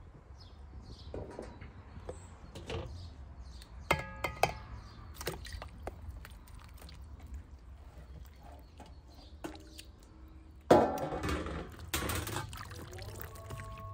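Cooking handling sounds: scattered knocks and clinks of utensils and dishes, with one ringing clink about four seconds in and a louder, sudden clatter near the end that lasts about a second and a half.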